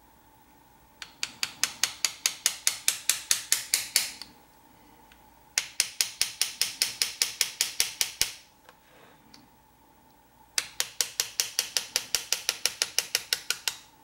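Small hammer tapping a hand engraving chisel as it cuts a scroll into metal. The taps come in three quick, even runs of about six a second, each run lasting about three seconds, with short pauses between.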